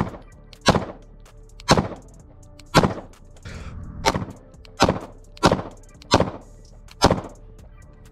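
Custom Glock 43X 9mm pistol firing 115-grain rounds: nine sharp shots, roughly one every second at an uneven pace. The last shot empties the magazine and the slide locks back.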